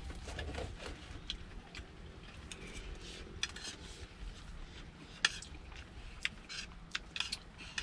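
A metal spoon clinking and scraping against a plate while someone eats, in scattered light clicks, one sharper clink a little past five seconds in.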